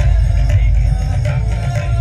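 Soundtrack music of a light and sound show, played loud, with a deep bass, a held melodic tone and light percussion.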